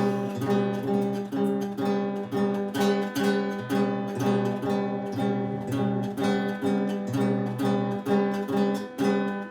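Acoustic guitar strummed in a steady rhythm, chords struck about twice a second with no singing.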